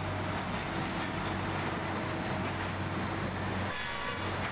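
Harsco P-811 track renewal train's engine and machinery running: a steady, even drone with a constant low hum.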